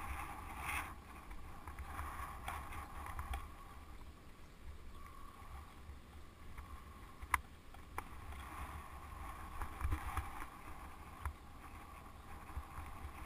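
Low wind rumble on a bike-mounted camera's microphone as a mountain bike rolls slowly over pavement, with two sharp clicks about half a second apart a little past halfway.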